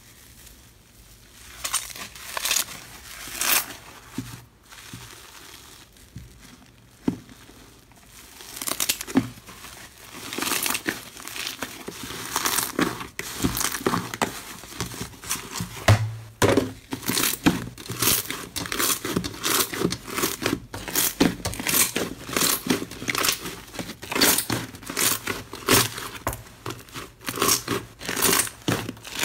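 Slime being stretched, kneaded and pressed by hand: a run of sticky crackles and pops, sparse at first and packed close together from about ten seconds in.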